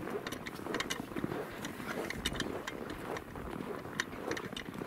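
Footsteps crunching in snow at a walking pace: irregular short crunches and crackles over a soft rustle.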